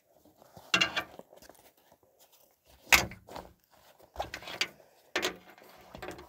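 Handling noises from a nylon tool pouch and metal shovel parts being pulled out and set down on a glass tabletop: about five short clicks, rustles and light knocks, the loudest about three seconds in.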